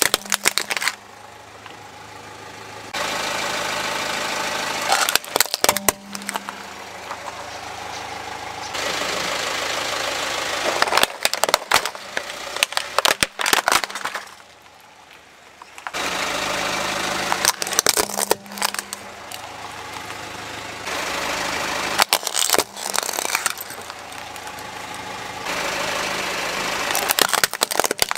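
A car engine running slowly as its tyre rolls over plastic toys, with a burst of sharp cracking and crunching every five seconds or so as each toy breaks under the wheel.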